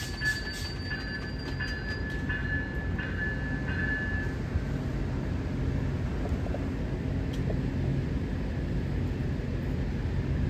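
Amtrak passenger train running steadily past a railroad crossing. The crossing's warning bell rings in repeated strokes for the first four seconds or so, then stops.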